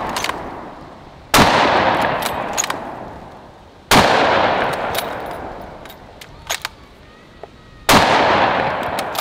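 Three rifle shots from a .308 Remington 783 bolt-action hunting rifle firing full metal jacket rounds, spaced about two and a half to four seconds apart, each echoing and fading over a couple of seconds. Short clicks come between the shots.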